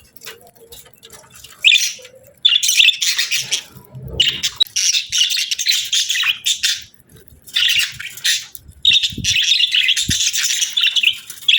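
Budgies chattering: bursts of rapid, high chirping warble that start about one and a half seconds in, pause briefly midway, then carry on.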